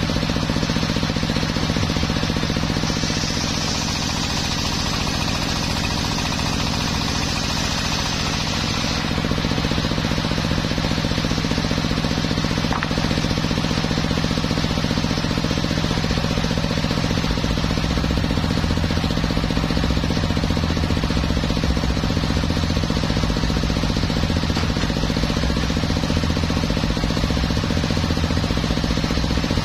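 Homemade circular sawmill bench running steadily as teak boards are fed through its large blade, a constant low hum under the hiss of the blade cutting wood. The cutting hiss is strongest from about three to nine seconds in.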